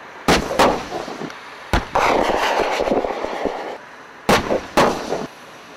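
Live-fire gunshots and blasts, each report echoing. There are two sharp reports at the start and two near the end, and between them, from about two seconds in, a loud run of crackle and rumble lasting over a second and a half.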